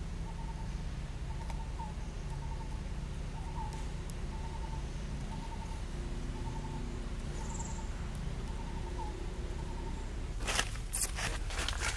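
A bird repeating one short note over and over, a little under two a second, over a steady low outdoor rumble; the calling stops a little before the end. Near the end comes a brief, louder scuffle of rustling as the macaque moves suddenly.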